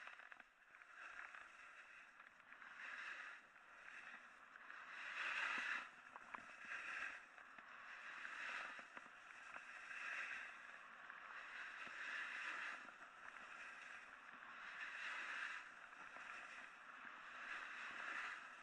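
Snowboard edges scraping across rough, chopped-up snow through a run of linked turns, a hiss that swells and fades with each turn, roughly every two seconds.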